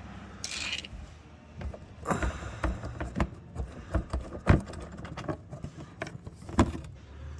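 Clicks and knocks of hand tools as a Torx bit and driver work loose the fasteners of a car's underbody panel. There is a short hiss under a second in.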